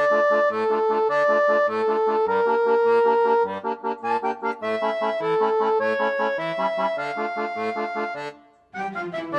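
Background music: a melody of held notes over a steady bass, which breaks off briefly near the end and then starts again.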